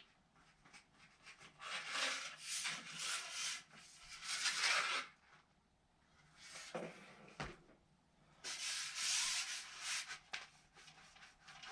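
Rubbing and scraping from handling carbon fishing-pole sections, as parts are worked off or pulled free. The noise comes in two main spells, with a few short scrapes between them.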